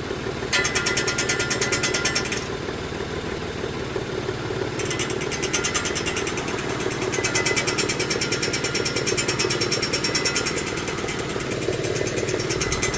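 2018 Mitsubishi Mirage GS's three-cylinder engine running steadily, with a rapid, evenly spaced high ticking rattle that starts about half a second in, stops near two and a half seconds, and returns near five seconds for most of the rest. The rattle is the noise the owner is concerned about.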